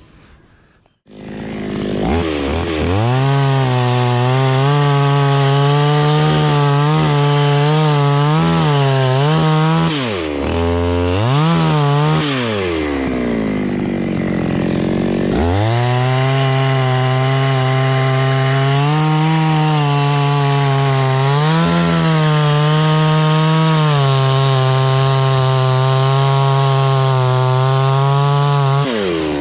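Two-stroke chainsaw coming on about a second in and running at high revs, the pitch wavering as it cuts through a coconut palm trunk. Near the middle it drops back towards idle and then revs up again to cut on.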